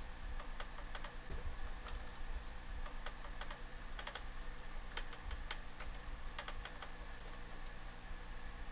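Typing on a keyboard: irregular light key clicks over a low steady electrical hum.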